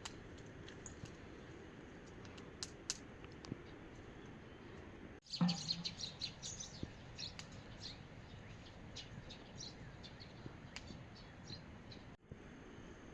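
Small birds chirping over a steady hiss of rain, the chirps loudest and busiest just after a sudden cut about five seconds in.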